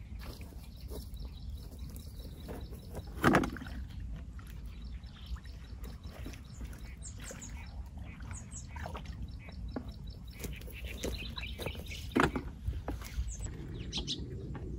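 Birds chirping and trilling over a steady low rumble, broken by two short loud knocks, one about three seconds in and one near the end.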